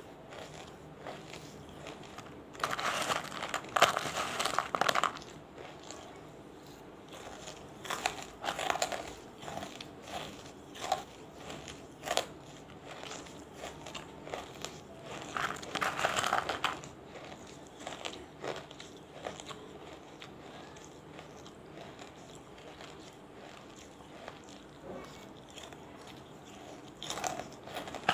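Crunching bites and chewing of banslochan (tabasheer, bamboo silica) pieces, some wetted and some dry. Two longer runs of dense crunching, about 3 s in and again around 16 s, with scattered single crunches and clicks between.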